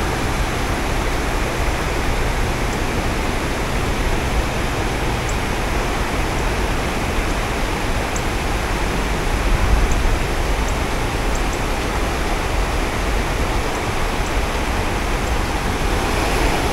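Steady rushing of river water flowing over shallows, with an uneven low rumble and a few faint high ticks.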